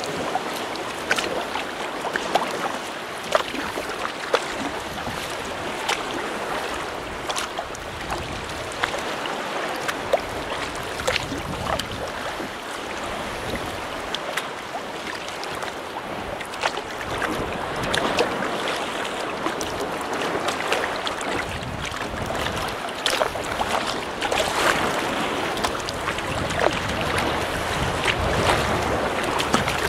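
Choppy sea water splashing and lapping around a paddled sea kayak, with irregular sharp splashes, some wind on the microphone.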